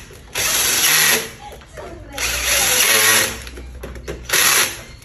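Cordless 12V drill-driver whirring in three short bursts as it runs in the busbar terminal screws on a row of MCB circuit breakers. The first two bursts last about a second each and the last, near the end, is shorter.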